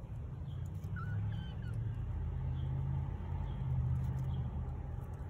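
A low engine drone that swells about a second in and eases off near the end, with faint high chirps about once a second and a short warbling chirp early on.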